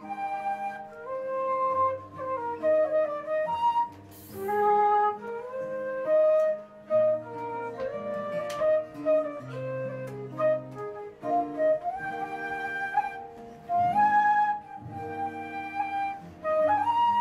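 A wooden transverse flute plays a traditional Irish tune, with quick ornamented notes, over fingerpicked acoustic guitar that holds low bass notes and chords underneath.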